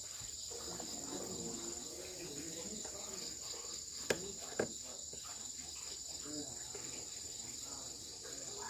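Crickets trilling steadily at a high pitch, with two sharp clicks about four and four-and-a-half seconds in.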